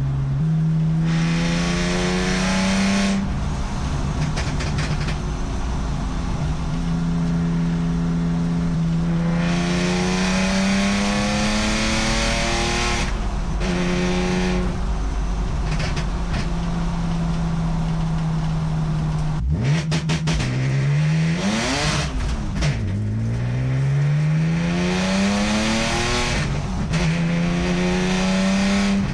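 Turbocharged BMW E46 330ci's M54 straight-six accelerating hard, heard from inside the cabin. The engine rises in pitch through several pulls and drops sharply at each gear change, with a hiss over the top during some of the pulls. It is running on a fresh tune for its new PMAS mass air flow sensor.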